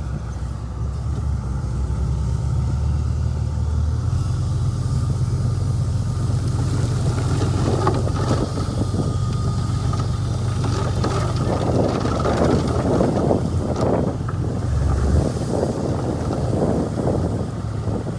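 Bulldozer's diesel engine running steadily under load, its note shifting about four seconds in. From about halfway there are irregular clanks and rattles of metal and pushed soil.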